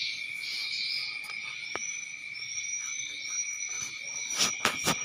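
A steady, high insect-like chirring with short repeated higher chirps. A few sharp clicks about four and a half seconds in.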